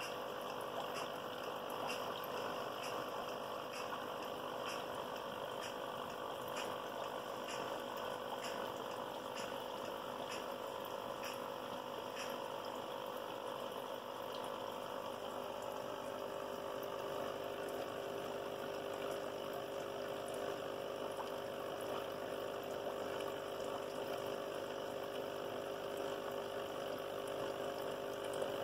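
Aquarium air pump running steadily with a hum, and air bubbling up through the tank water from the airline and sponge filter, with faint scattered ticks in the first half.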